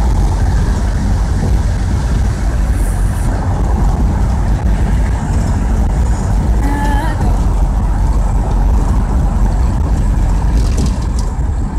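Steady road and wind noise inside a moving car's cabin: a low rumble with a rushing hiss, wind blowing in through an open window.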